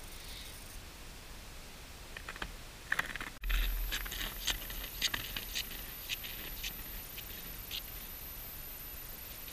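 Footsteps crunching in snow on lake ice, about two a second, thinning out near the end. A dull thump about a third of the way in is the loudest sound.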